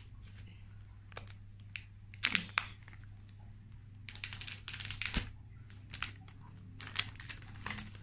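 Clear plastic shrink wrap being peeled and pulled off an iPhone 12 Pro Max box: scattered crinkles and crackles, thickest about four to five seconds in.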